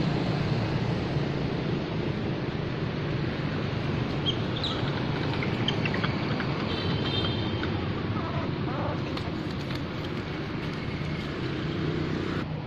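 Steady low rumbling background noise outdoors, with a few faint, short high chirps about four to seven seconds in.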